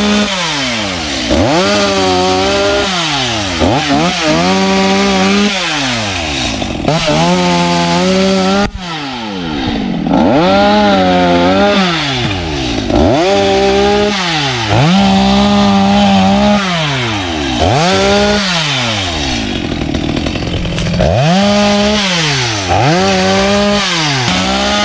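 Two-stroke chainsaw cutting through a log. It is throttled up to a high steady whine about ten times, held for a second or two each time, and its pitch falls away each time the throttle is let off.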